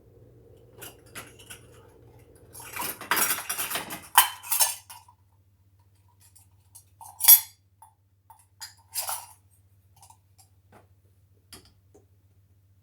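Kitchen utensils clattering and scraping against dishes while ingredients are measured and handled. There is a dense run of scraping and clinking about three to five seconds in, then a few separate sharp clinks, over a low background hum.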